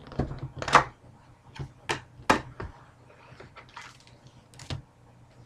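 Trading-card box packaging being handled and opened: irregular crinkling of wrapper with sharp snaps and taps of cardboard and plastic. The loudest snaps come a little under a second in and at about two and a half seconds.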